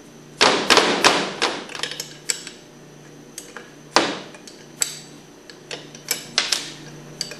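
Irregular sharp metal clinks and knocks from a 1/2-inch wrench working the four bolts that hold the pump's flange to the motor. A quick cluster of strikes comes about half a second in, followed by scattered single clinks, a few of them ringing briefly.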